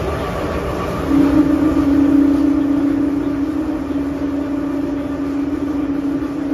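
Inside a first-generation MTR M-train, the train runs with its usual rumble. About a second in, a loud steady whine comes in from the traction equipment and holds: the 'ghost howl' this train is known for.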